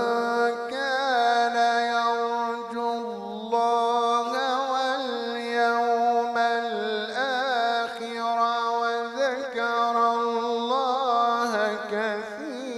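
A man reciting the Quran in the melodic, drawn-out tajweed style, holding long ornamented notes that waver and slide in pitch, with a few short breaks between phrases.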